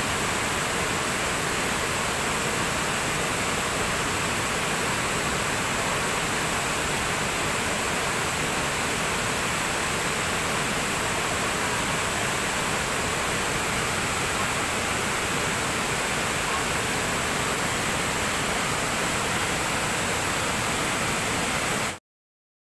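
Waterfall's steady rush of falling water, cutting off suddenly near the end.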